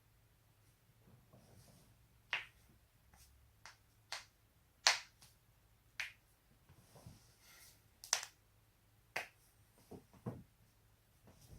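A person cracking their own neck and back joints: a string of sharp, short pops, about nine in all at uneven intervals, the loudest about halfway and about two-thirds through.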